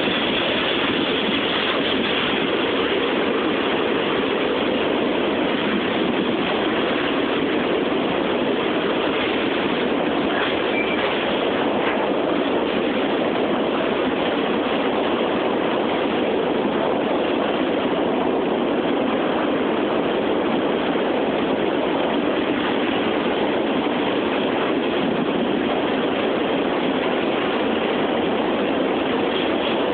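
Freight cars of a CSX mixed freight train rolling past, with the steady, unbroken noise of steel wheels on rail.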